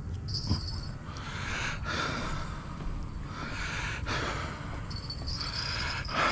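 A person breathing close to the microphone, about three breaths some two seconds apart, over a steady low wind rumble, with a short handling knock about half a second in.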